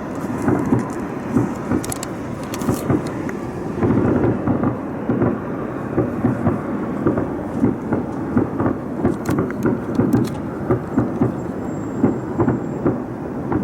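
A continuous, irregular string of distant booms and bangs echoing around buildings, several a second, with a few sharper cracks among them. It is like a large fireworks barrage or explosions, but its source is unidentified.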